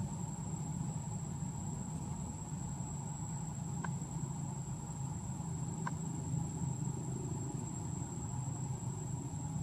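Steady outdoor ambience: a continuous high-pitched insect drone over a low steady rumble, with two short faint chirps about four and six seconds in.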